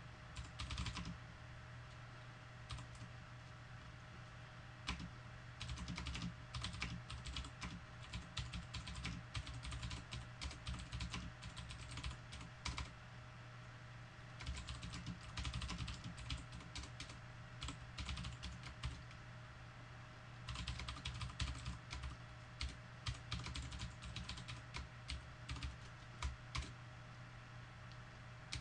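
Typing on a computer keyboard: runs of quick key clicks lasting several seconds, broken by short pauses, over a faint steady hum.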